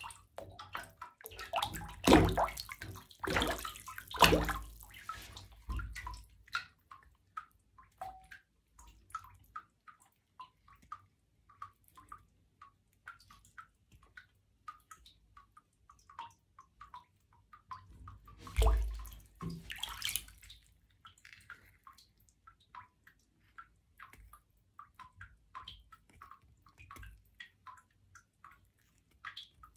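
Stockinged feet splashing and sloshing in shallow water in a bathtub, in a busy stretch a couple of seconds in and again shortly before 20 seconds. Between these, water drips in small, regular ticks.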